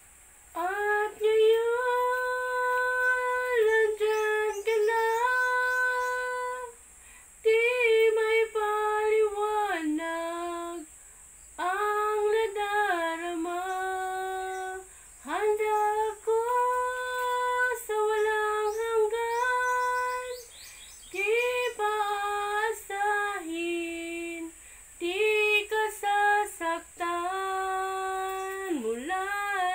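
A woman sings a slow melody solo into a close microphone, in long held phrases with short breaths between them. No instrument is heard.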